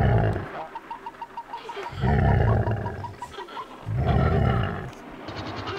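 Big-cat roars, three of them, each about a second long and spaced about two seconds apart.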